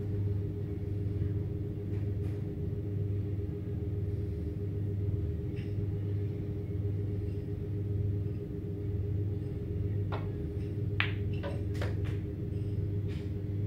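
Snooker balls clicking: a few sharp knocks of cue tip and balls in quick succession late on, over a steady low hum.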